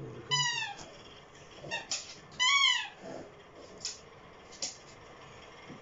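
Orange squeaky toy ball squeaking twice as a dog bites and noses at it, each squeak a loud, falling tone, with a few faint clicks between.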